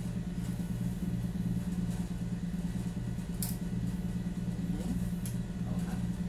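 A steady low hum with a slow throb about twice a second. Over it come a couple of light clicks as the metal gooseneck arms of a microphone and phone stand are bent and adjusted by hand.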